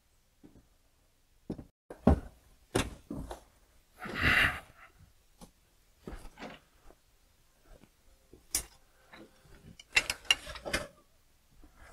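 Scattered metal clicks, clinks and knocks of a steel cable and rope-hoist pulley being handled and hooked up on a pickup truck's bed liner, with a short scraping rustle a little after four seconds and a quick run of clicks near the end.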